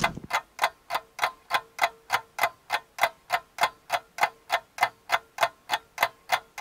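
A clock ticking sound effect: sharp, evenly spaced ticks, about three a second, with no other sound under them.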